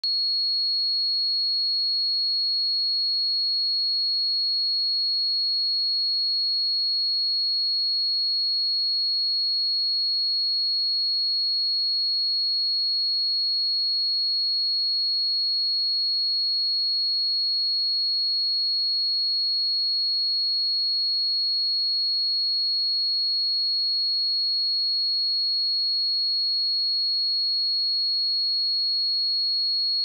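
A pure 4323 Hz sine-wave test tone, one steady high-pitched note held at an even level with no other sound.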